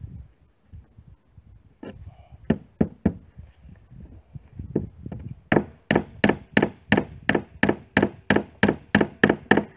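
Hammer striking nails into the wooden gunwale of an old rowboat: a few scattered knocks, then a steady run of about a dozen strikes, roughly three a second, from about halfway through.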